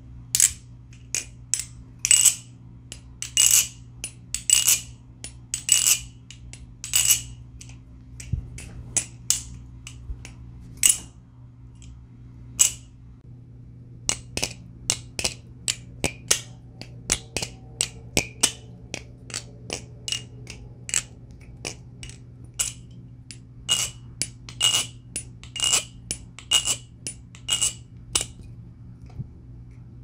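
Nabalis Morse channel-aluminum balisong on bushings being flipped: quick runs of sharp metallic clicks and clacks with a bright ring as the handles swing shut and tap together. The pivots are dry at first, then lubricated with Canto Thick v2 after a short lull a little under halfway in.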